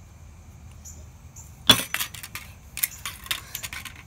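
A hammer smashes a plastic Nerf gun part on a concrete floor: two loud sharp blows about two seconds in, followed by a patter of smaller clicks and knocks as broken plastic pieces scatter across the concrete.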